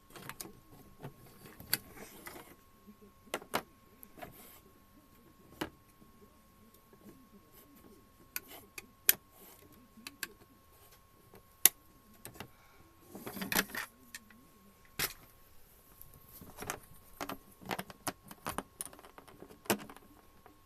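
Scattered clicks and knocks at irregular intervals, a few of them sharp, with a denser patch about two-thirds of the way through, over a faint steady high hum.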